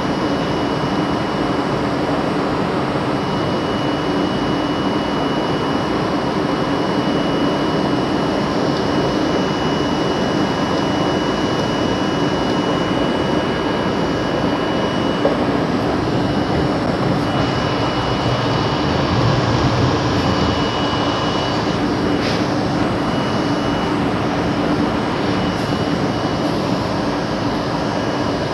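R32 subway train running along elevated track, a steady rumble of wheels on rail and traction motors heard from inside the front car.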